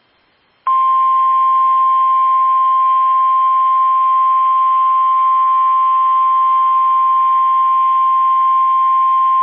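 Emergency alert tone: a single steady, loud tone just above 1 kHz, the National Weather Service's 1050 Hz warning alarm tone that heralds a severe thunderstorm warning. It starts under a second in and holds unbroken for about nine seconds.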